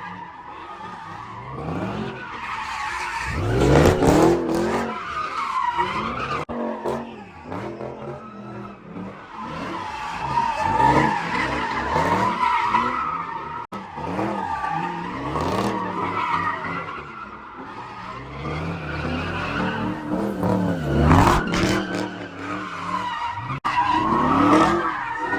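Car tyres squealing with the engine revving up and down again and again, loudest about four seconds in and near the end.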